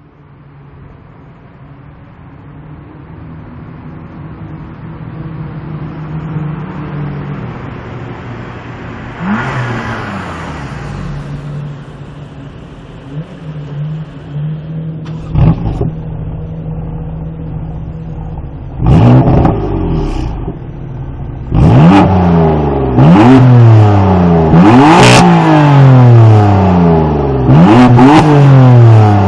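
BMW M3 engine running at a steady idle, then revved hard several times in the last third, each rev rising sharply and falling back.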